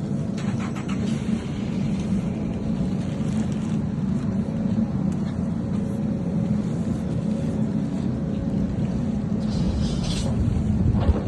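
Steady low drone of running machinery, with a few faint knocks and scrapes near the start and near the end.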